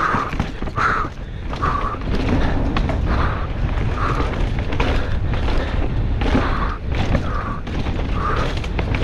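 Downhill mountain bike clattering over a rocky dirt trail at speed: heavy wind rumble on the onboard camera mic, with frequent sharp knocks and rattles from the tyres, chain and suspension hitting rocks and roots. A soft puff repeats about once a second.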